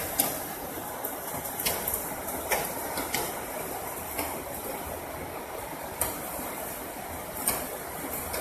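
Steady rush of running floodwater, with a few sharp snaps and rustles as tangled brush and branches are dragged out of it by hand.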